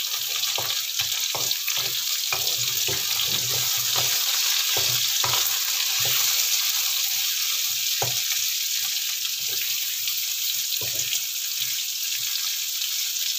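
Sliced bitter gourd sizzling in hot oil in a nonstick wok, stir-fried with a wooden spatula. The spatula scrapes and knocks against the pan every half second or so over a steady frying hiss.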